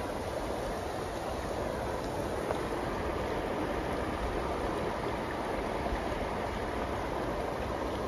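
Steady rushing of a river flowing over rocks.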